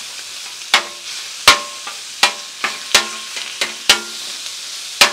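Flat metal griddle chopper striking the steel cooktop of a Blackstone griddle in sharp, ringing clacks, about ten at uneven intervals, as ground pork is chopped up to brown. A steady sizzle of the pork frying runs underneath.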